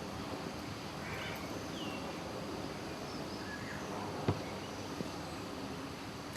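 Steady outdoor background noise with a few faint, short bird chirps, and a single sharp click about four seconds in.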